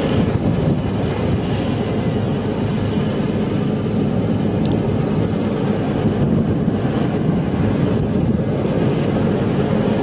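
Punni Grain Cruiser combine harvester running steadily while it cuts and threshes standing wheat: an even, dense mechanical drone of its engine and threshing machinery.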